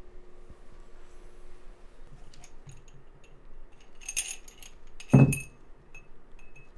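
Small metal objects clinking and jingling as someone rummages through things, with a louder knock and ring about five seconds in.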